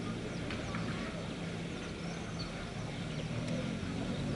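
Small birds chirping in short scattered calls over a steady low hum.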